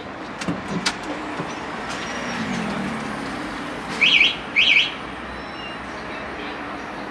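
Two loud, identical zig-zag chirps about half a second apart, over a steady low hum. A few sharp clicks come about half a second in.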